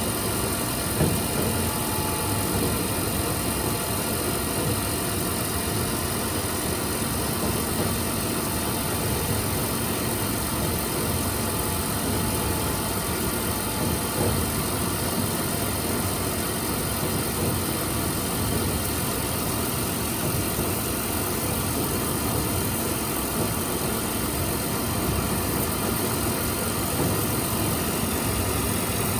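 Milling machine running steadily while fine-milling an A2 tool steel plate, a constant mechanical drone with a high-pitched whine.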